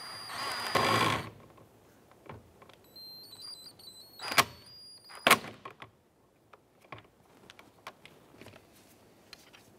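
Cordless drill/driver snugging a screw into a car's plastic door trim: its motor whines for about a second, then after a pause runs in a few short stuttering spurts. Two sharp clicks come about four and five seconds in, followed by faint handling clicks.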